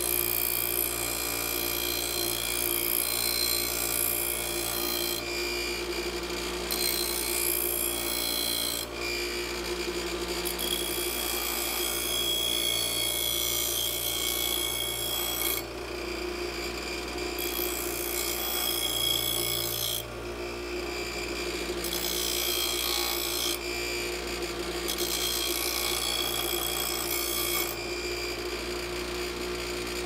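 An 8-inch bench grinder running steadily with its motor hum, while a strip of spring steel held in locking pliers is ground against the wheel in repeated passes; the grinding breaks off for a second or two several times when the steel is lifted off. The steel is being narrowed slowly to keep heat from building up.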